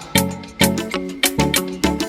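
Background music with a steady beat: a bouncy track with strummed or plucked chords and bass on each beat, about two and a half beats a second.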